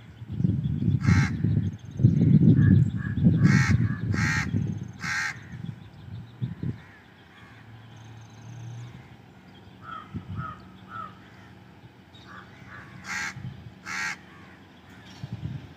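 A crow cawing: about four harsh caws in the first five seconds and two more near the end. Under the first caws, a loud low rumble that dies down after about seven seconds.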